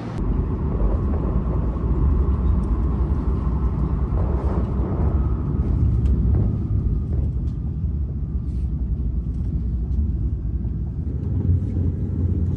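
Steady low rumble of a moving vehicle, heard from inside as it travels along.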